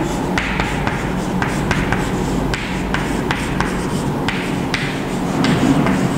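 Chalk writing on a chalkboard: quick, irregular taps and short scratches as the letters are formed, over a low steady hum.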